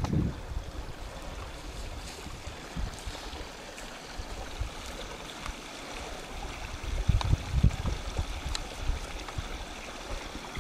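Small mountain stream trickling steadily, with wind gusting on the microphone, strongest about seven to eight seconds in, and a few faint clicks.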